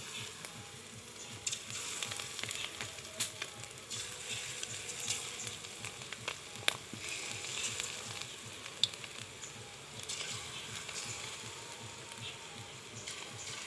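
Fish-roe fritters frying in hot oil in a kadai: a steady sizzle with scattered crackles and a few sharp pops.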